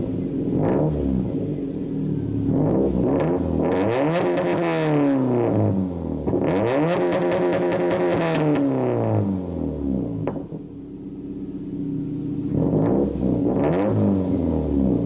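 Straight-piped exhaust of a 2007 Subaru Impreza WRX STI's turbocharged 2.5-litre flat-four, revved repeatedly from idle. There are quick blips early on, two longer revs around four and seven seconds in that climb and fall back to idle, and two more quick blips near the end.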